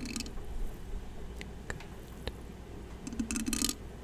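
Close-miked ASMR handling sounds: a short burst of rustling right at the start and another just after three seconds in, with a few soft clicks between them.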